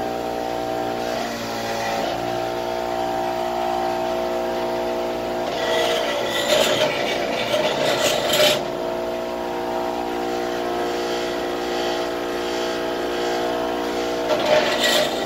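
Delta bench grinder with a wire wheel running with a steady hum. Twice, a piston is pressed against the spinning wire wheel, for about three seconds starting some six seconds in and again briefly near the end, adding a brushing, scrubbing noise as it cleans carbon from the piston's ring lands.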